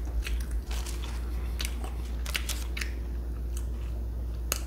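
A person chewing crisp home-cut french fries close to the microphone: scattered crunches and wet chewing clicks, with a sharper crunch near the end, over a steady low hum.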